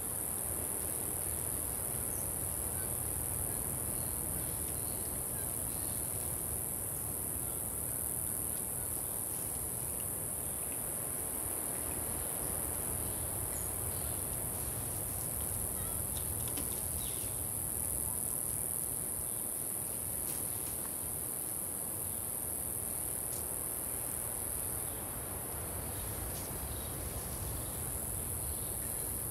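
A steady, high-pitched insect chorus of crickets or cicadas shrilling without a break, over a low steady outdoor rumble, with a few faint short ticks now and then.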